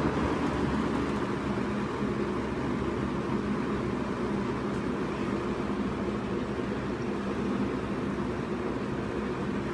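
Sears (Lasko) model 8121 20-inch box fan running on medium speed: a steady rush of air from the blades over the low hum of its motor.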